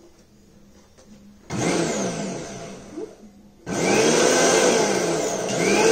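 Bajaj 500-watt mixer grinder switched on about one and a half seconds in and winding down about two seconds later. It is then switched on again and runs steadily and loudly.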